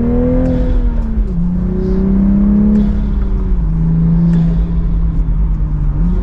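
Turbocharged B58 inline-six of a six-speed manual Toyota Supra 3.0, breathing through an Armaspeed carbon fiber cold air intake, pulling under throttle. The engine note drops about a second in and again a few seconds later, as between gear changes, then rises again near the end.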